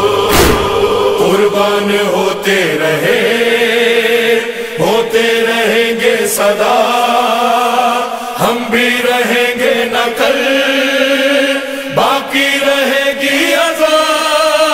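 Layered male voices chanting long, drawn-out notes of a noha, an Urdu Shia lament, with a few sharp beats spaced several seconds apart.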